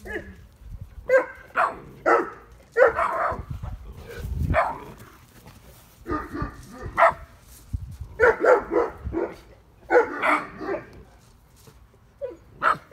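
Neapolitan mastiff puppy barking in repeated bursts, a few short barks at a time with pauses between: alarm barking at a figure it does not recognise and takes for a stranger.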